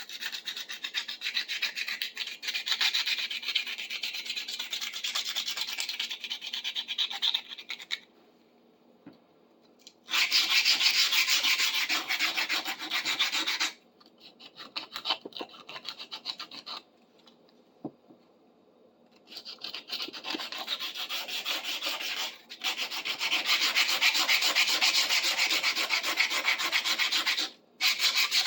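Hand sanding rust off a small metal tool with a strip of fresh sandpaper: quick back-and-forth rubbing strokes in runs of several seconds, stopping briefly a few times.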